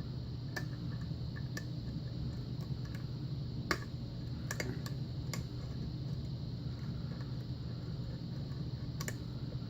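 Small, sharp clicks and ticks of a lock pick working the pins of an old Russwin six-pin pin tumbler lock under tension during single-pin picking, coming at irregular intervals, the loudest a little over halfway through, over a steady low hum.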